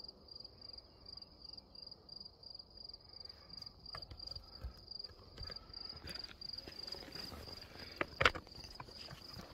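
A cricket chirping in rapid, even pulses at one high pitch. A few crunching footsteps on loose rock sound near the end, the loudest about eight seconds in.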